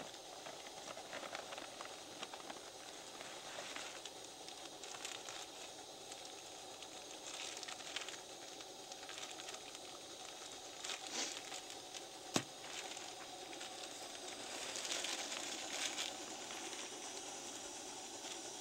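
Camp gear being handled in the dark: crinkling and rustling, as of plastic bags, over a steady hiss, with one sharp click about twelve seconds in.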